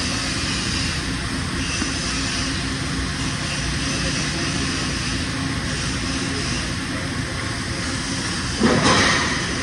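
Steady machine-shop background noise: a constant mechanical drone with a faint low hum. A louder noise lasting about a second rises out of it near the end.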